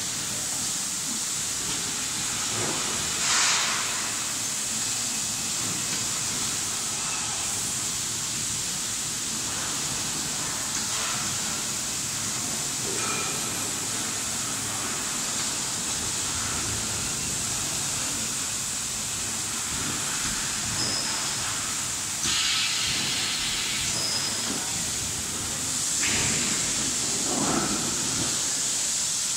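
Steady hiss of running workshop machinery, with a few brief clatters and scrapes of thin metal sheets being handled.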